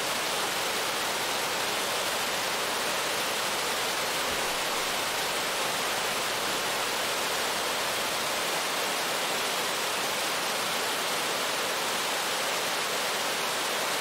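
Whitewater rushing through a river chute: a steady, even hiss and roar with no change.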